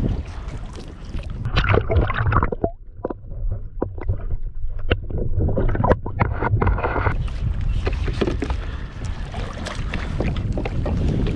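Water sloshing and splashing around a kayak hull, with a steady low rumble and many short knocks and clicks. The sound drops quieter for a few seconds just before the middle.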